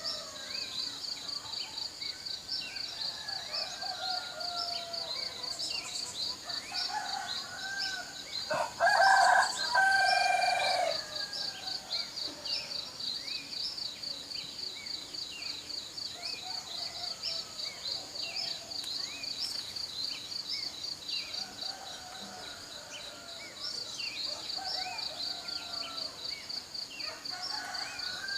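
Insects chirping in a steady, fast pulse, with scattered bird calls, and a rooster crowing once, loudly, about nine seconds in.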